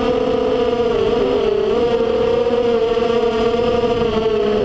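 FPV drone's electric motors and propellers whining loudly close to the onboard microphone, with a rushing haze underneath. The pitch dips about a second in, recovers, and sags again near the end as the throttle changes.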